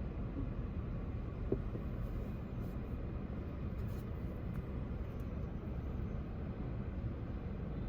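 Steady low background rumble with no speech, and a faint click about a second and a half in.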